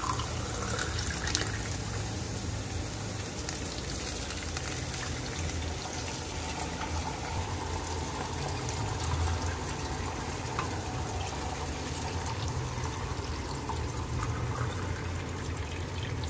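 Water poured from a steel tumbler into a kadai of fried onions and tempering, the tumbler refilled from a plastic jug several times, making a steady pouring and trickling sound.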